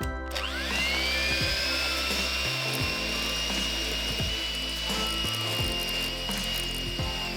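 Electric kitchen mixer motor spinning up to speed just after the start, running at a steady high whine, then beginning to wind down at the very end. Background music plays underneath.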